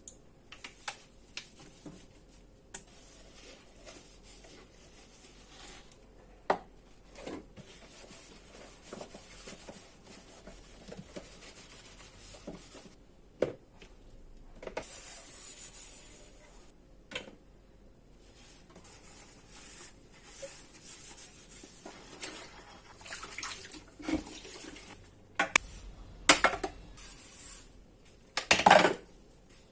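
Dishes being washed at a sink: a tap running water in spells, with plates and pans clinking and knocking against each other, the loudest clatters coming near the end.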